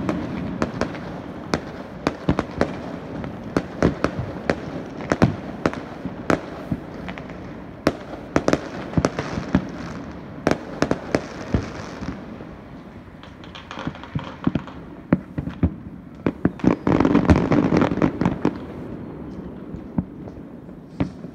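Aerial fireworks bursting: an irregular run of sharp bangs and pops all through, thickening into a rapid cluster of bangs about three-quarters of the way in.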